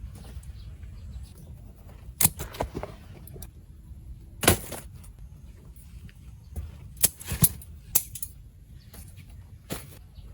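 Vegetables being picked by hand among greenhouse plants: a series of sharp snaps and rustles, about seven of them and irregular, over a low steady rumble.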